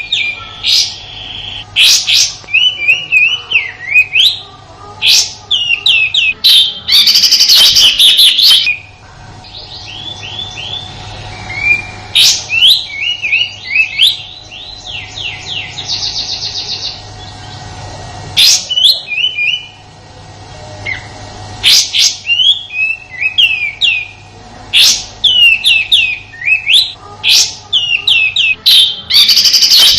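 Kapas tembak songbird giving its rough 'tembakan' song: rapid runs of sharp whistled notes that sweep up and down, a quicker rattling trill in the middle, and loud harsh bursts about seven seconds in and again near the end. A faint steady hum runs underneath.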